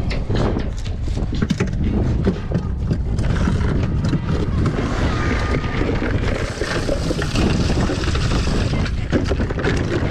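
Wind buffeting the microphone in a steady low rumble, with knocks and rattles as a plastic cooler lid is lifted and cans and bottles inside are handled. A broad hiss swells for several seconds in the middle.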